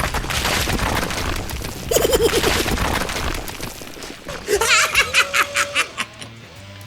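Edited-in cartoon sound effects: a noisy boom or crash at the start, then giggling, snickering laughter twice.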